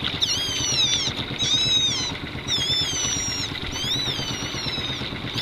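A small boat's outboard motor running under wind and water noise, with high-pitched squeaks that rise and fall, one every second or so.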